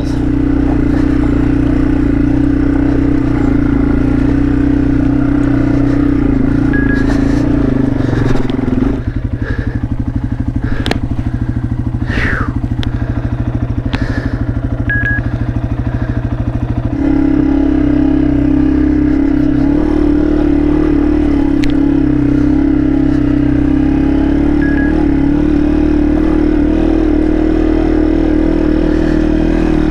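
Small single-cylinder trail motorcycle engine running steadily under load up a steep climb. About nine seconds in the engine note drops and turns rougher, and about seventeen seconds in it rises back to its earlier steady pitch. A few short clicks and rattles come in the middle.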